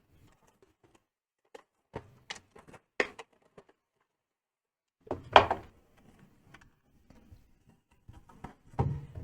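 A small package being handled and opened on a work bench: scattered light taps and clicks, with a louder rustle or tear about five seconds in.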